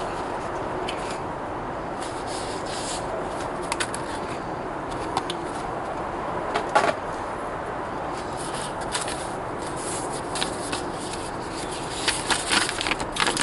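Small handling sounds over a steady background hiss: a few scattered clicks and taps, then paper rustling near the end as a folded instruction sheet is opened out by hand.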